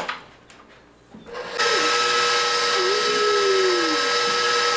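KitchenAid Professional 550 HD stand mixer switched on about a second and a half in, its motor coming up to speed and then running with a steady whine as the wire whisk beats eggs, sugar and vanilla in the steel bowl.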